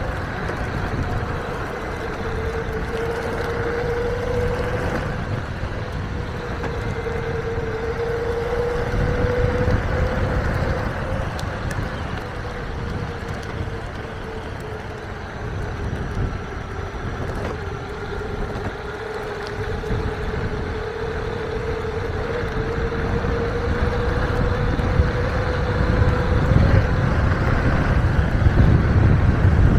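Electric mountainboard riding on asphalt: the electric drive motor whines at one steady pitch that sags and climbs slowly with speed, over tyre rumble on the road surface and wind on the microphone. The rumble and wind grow louder near the end.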